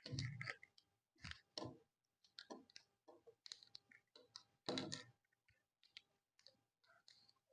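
Small plastic and diecast model-kit parts clicking and knocking as they are handled and fitted together by hand: a scattering of faint, irregular clicks, the loudest right at the start and just before five seconds in.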